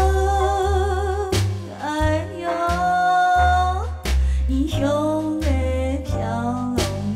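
A sung song: a voice holds long notes with a wavering vibrato and moves between them, over a steady, pulsing bass beat.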